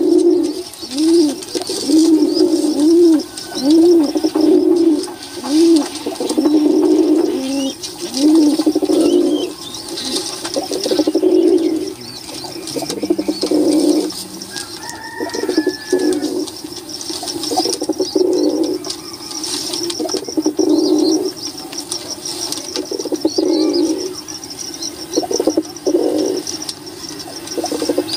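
Domestic pigeons cooing, several birds overlapping. A regular run of rising-and-falling coos about one a second at first, then longer, denser cooing.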